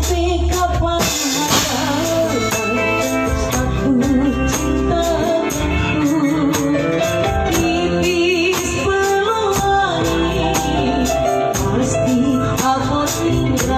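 Hand tambourine jingling in a steady rhythm, played along with a recorded song with a singer.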